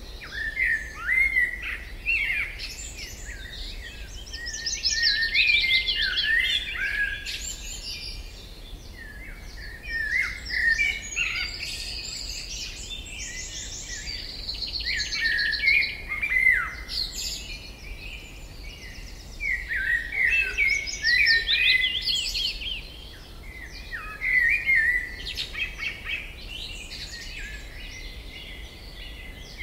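Songbirds singing, several voices overlapping in bouts of chirps and quick trills, over a faint, steady low hum.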